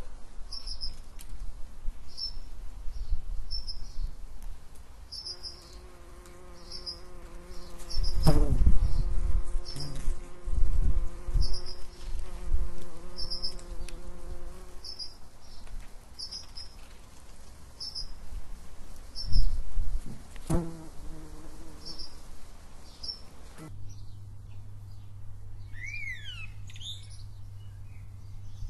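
Outdoor ambience: a short high chirp repeated about every second over a low rumble, with a few louder thumps in the middle. About five seconds before the end the background changes suddenly to a steady low hum with a few sweeping bird calls.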